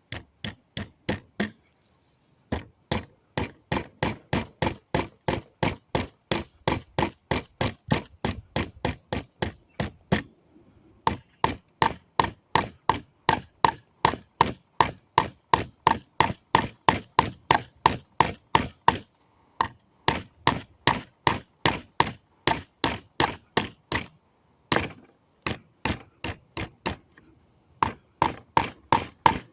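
Steel hammer blows on nails in pallet planks, knocking the nails out, about three ringing strikes a second. The run of blows breaks off briefly a few times, with one longer pause near the end.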